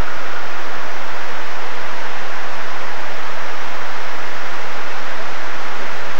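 Steady rush of falling water from the 9/11 Memorial reflecting-pool waterfalls.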